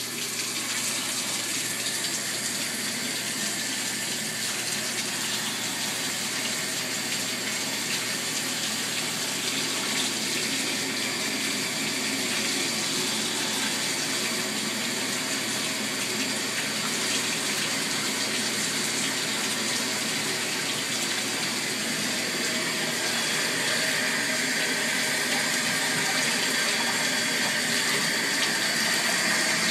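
Bathtub tap running steadily into the tub. A little past two-thirds in the sound shifts, as the water comes through a hand-held shower head and sprays onto a kitten.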